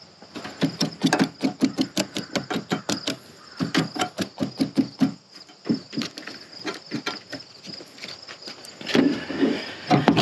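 A quick run of clicks and rattles, several a second, thinning out after about five seconds, from plastic fuses and the fuse box being handled. A faint steady chirping of crickets runs underneath.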